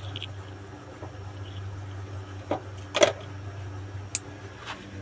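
A cinnamon stick being snapped into pieces between the fingers: a few short, sharp cracks, the loudest about three seconds in, over a steady low hum.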